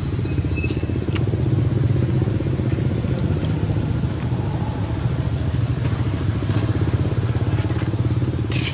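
A motor running steadily, a low hum with a fast, even pulse, with a few faint high chirps over it.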